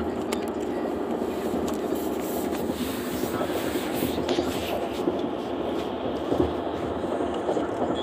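Steady road and engine noise inside a moving car's cabin, an even rumble that holds level throughout.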